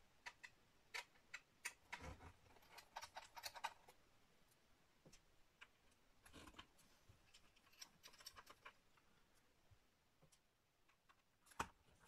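Faint, scattered clicks and ticks of a small T5 Torx screwdriver backing tiny screws out of the bottom cover of an Asus Zenbook UX431F laptop, with a sharper click near the end.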